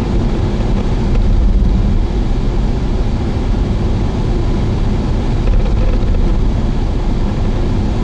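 Steady road and engine rumble of a car being driven, heard from inside the cabin. It is heavy in the low end and has no distinct events.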